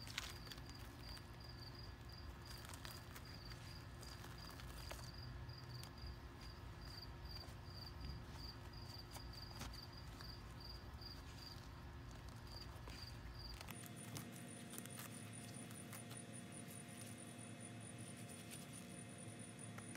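Insects chirping in a garden, a regular high-pitched chirp repeating a few times a second. About two-thirds of the way in it changes abruptly to a higher-pitched chirp, with a few faint clicks throughout.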